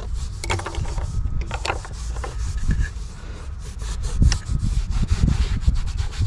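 A rag rubbing and wiping over engine parts, with scraping strokes, small clicks and knocks, over a steady low rumble.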